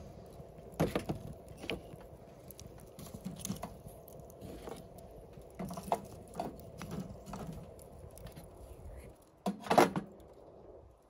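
Split hardwood kindling being fed into the fuel tray of an Ooni Karu pizza oven: scattered knocks and scrapes of wood against the steel hatch opening. A loud cluster of metal knocks about ten seconds in, as the fuel cover is handled back into place.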